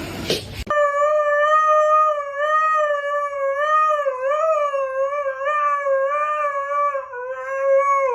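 A dog howling: one long, unbroken howl lasting about seven seconds, wavering slightly in pitch. It follows a brief rush of noise at the start.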